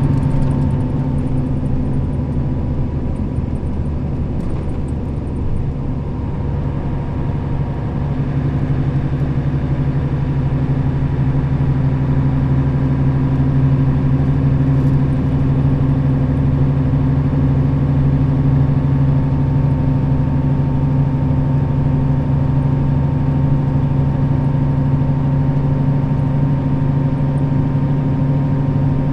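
Nissan Diesel KL-RA552RBN bus heard from inside, its diesel engine running at a steady speed with even road noise. The engine pitch holds level, as when cruising.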